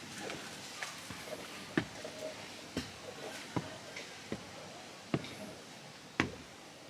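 A series of sharp knocks and clicks, roughly one a second and unevenly spaced, over a faint steady hiss.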